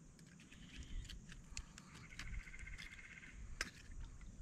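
Faint, rapid pulsed trill of a small calling animal lasting about a second, with a few soft clicks and knocks from handling tackle on the boat deck.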